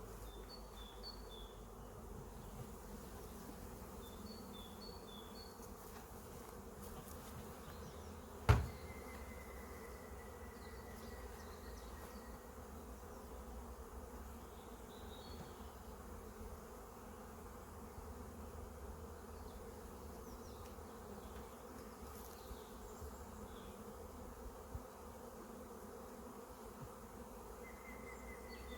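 Honeybees buzzing steadily in a dense hum, with one sharp knock about eight and a half seconds in.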